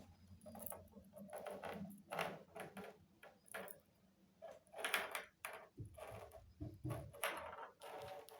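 A budgerigar playing with a walnut: irregular knocks, taps and short scraping rattles, a few each second, loudest about five seconds in.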